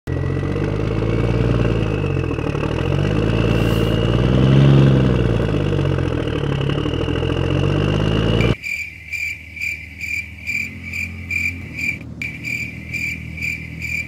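An engine running, its pitch and loudness rising and then falling, loudest about four and a half seconds in; it cuts off abruptly about eight and a half seconds in. A high insect-like chirp then pulses about two or three times a second.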